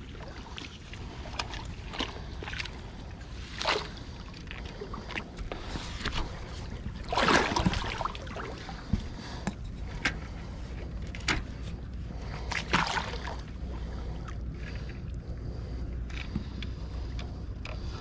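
Muddy river water sloshing and splashing around a half-submerged log, with a few louder splashes about four, seven and thirteen seconds in, over a steady low rumble.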